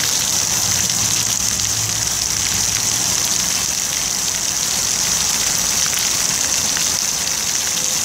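Ground-level fountain jet spraying steadily, the water splashing against a dog's body and onto wet paving.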